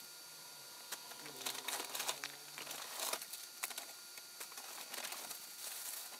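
Crinkling and rustling of a shopping bag and packaging being handled, in irregular bursts with sharp crackles, starting about a second in.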